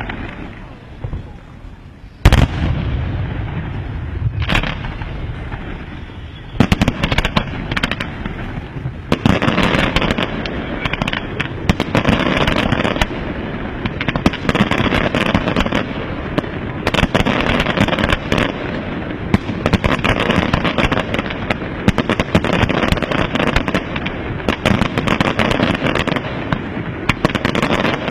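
Aerial fireworks display: a single loud shell burst about two seconds in, another a couple of seconds later, then from about six seconds a dense, continuous barrage of rapid bangs and crackling.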